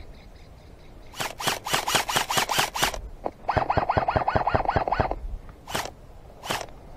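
Airsoft electric rifle (AEG) firing: a rapid string of about a dozen shots, then a longer full-auto burst with the gearbox whirring under the shots, then a few single shots spaced under a second apart.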